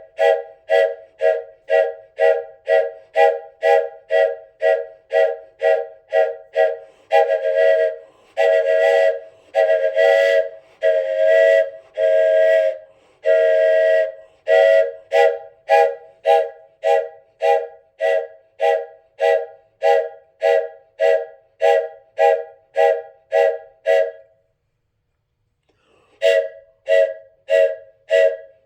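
Wooden train whistle blown in quick rhythmic puffs, about three a second, each a chord of several notes. In the middle comes a run of longer, breathier blasts of about a second each, then quick puffs again. The puffing stops for about two seconds near the end, then starts again.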